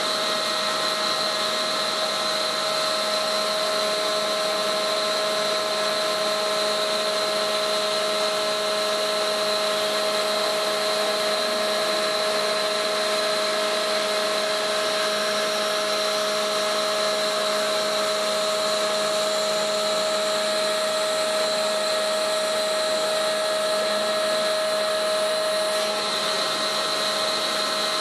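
Winch running on a hydraulic test stand: a steady mechanical whine of pump and gearing, several held tones over a hiss, unchanging in pitch.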